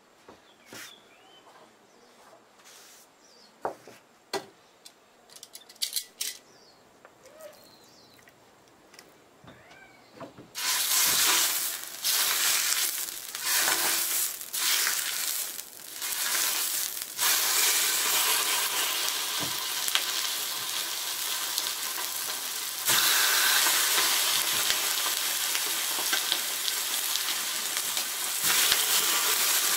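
A few light clicks, then, about a third of the way in, loud sizzling as raw chicken thigh pieces are laid one after another onto a hot griddle plate. The sizzle surges as each piece goes down and then runs on steadily, louder again near the end.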